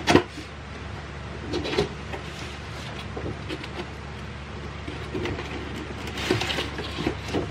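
Cardboard box and packaging being handled and opened by hand: a sharp knock at the start, then scattered rubbing, rustling and tapping, with a steady low hum underneath.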